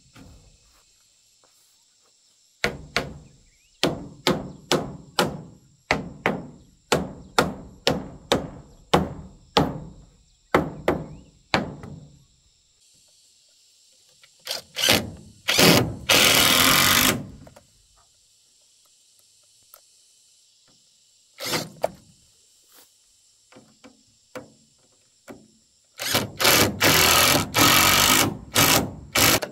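A run of about twenty sharp knocks on timber, about two a second. Then a cordless impact driver runs for about two seconds, and near the end it runs again in rapid bursts, driving a fastener into a wooden post.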